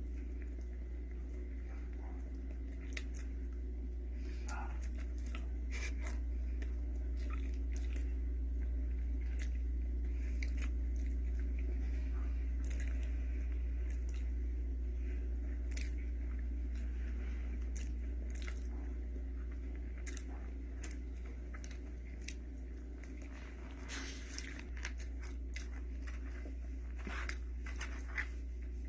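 A person eating cheesecake, with small scattered clicking and smacking chewing sounds throughout over a steady low hum.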